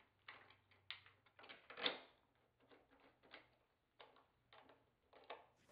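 Faint, scattered clicks and small taps of a hand screwdriver fastening a plastic kayak foot brace track to a wooden rail, with one slightly louder tap about two seconds in.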